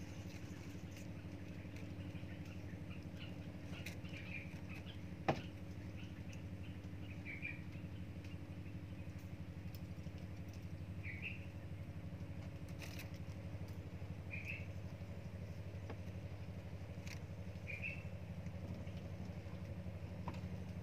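Steady low motor hum, with short high chirps every few seconds and a single sharp click about five seconds in.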